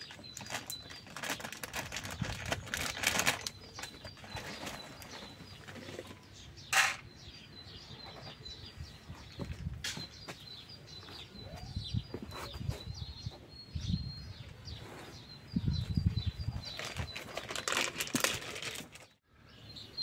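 Small birds chirping over and over in short, high, thin notes, over uneven rustling and handling noise, with one sharp brief noise about seven seconds in.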